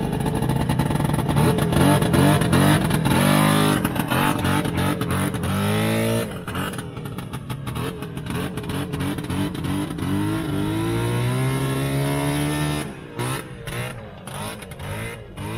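The 309 single-cylinder two-stroke engine of a 1971 Poloron Tornado snowmobile, running through a Donaldson exhaust that is thought to have no baffles left. It is revved hard as the sled pulls away, with the pitch climbing twice in quick succession and then in one longer climb. The sound falls off near the end as the sled gets farther away.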